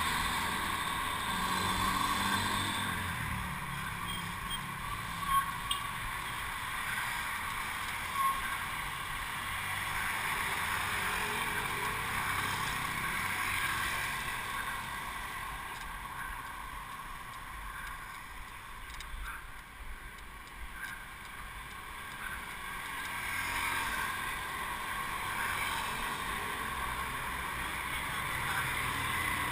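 Steady wind and road rush on a bicycle-mounted camera riding along a road, with motor traffic passing. There is more engine rumble in the first few seconds, and two brief knocks about five and eight seconds in.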